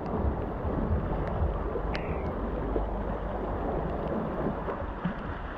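Wind buffeting the microphone over sea waves washing against jetty rocks, a steady rushing noise with a low rumble and a few light clicks.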